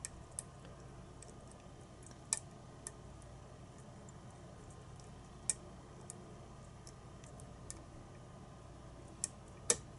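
Scattered small clicks of a lock pick and tension wrench working the pins of a pin-tumbler challenge lock. The clicks are irregular and come a few seconds apart. The loudest, near the end, comes as the core turns into a deep false set.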